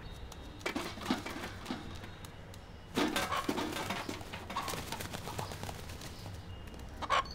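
A rooster shooed about a small kitchen: scattered knocks, scuffles and wing flaps with bird sounds, busiest about three seconds in and again near the end.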